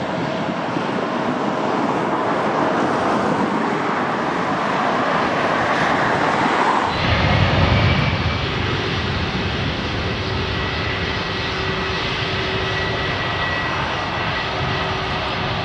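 Jet engines of an easyJet Airbus A319 at takeoff power, a dense rushing roar as the airliner climbs away. About seven seconds in the sound cuts abruptly to a deeper rumble with a steady whine from the engines of an easyJet A319 on the runway for the second takeoff.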